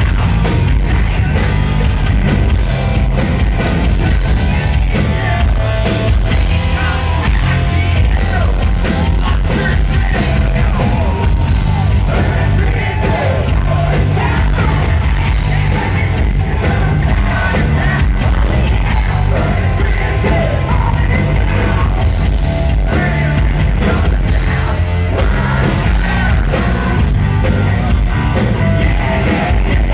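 Hard rock band playing live and loud: lead vocals sung over distorted electric guitar, bass and drums through a concert PA.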